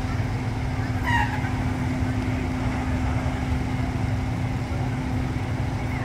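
A steady mechanical hum over a low rumble, with a brief high cry about a second in.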